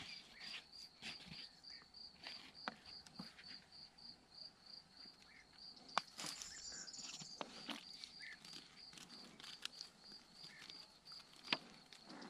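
An insect, likely a cricket, chirping steadily in a high, even pulse of about three chirps a second, with scattered small clicks and rustles of handling close by, the sharpest about halfway through and near the end.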